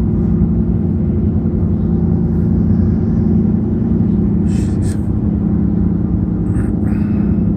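Steady drone of a car's engine and road noise heard inside the cabin at highway speed, with a few short hissy noises about five and seven seconds in.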